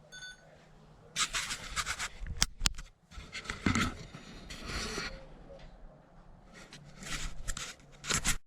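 Handling noises: irregular rustling and scraping, with a few sharp clicks, two of them loud, one about two and a half seconds in and one near the end.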